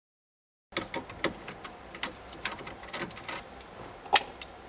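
Irregular clicks and light knocks of hand tools and plastic dash trim being handled while the radio and climate control panel are unscrewed, with one loud sharp click a little after four seconds.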